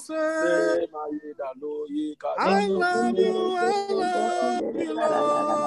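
A worship song sung with long held notes, heard through a video call, with a short lull about a second in.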